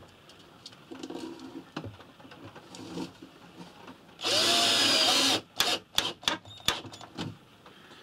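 Cordless drill-driver running for a little over a second, driving in a screw to secure a fuse box housing. A run of sharp clicks and knocks follows.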